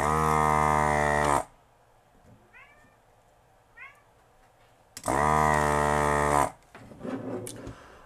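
Desoldering gun's vacuum pump buzzing in two short runs, each about a second and a half, the second starting about five seconds in, as it sucks molten solder from an inductor's pins on the stereo's circuit board.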